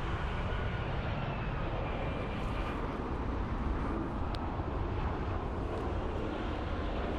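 Jet engines of a Boeing 737-800 airliner on approach: a steady rumble with faint whining tones that slowly drop in pitch.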